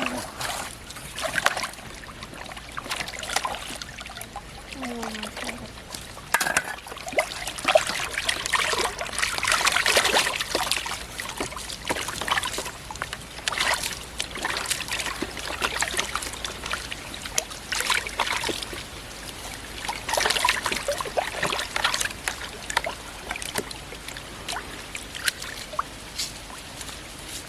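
Pond water splashing and trickling in irregular bursts, loudest about ten seconds in and again about twenty seconds in.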